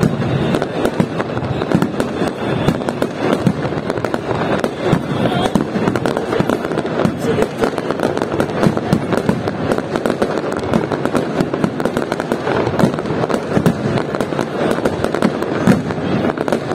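Fireworks display: aerial shells bursting and crackling in a rapid, unbroken barrage of bangs.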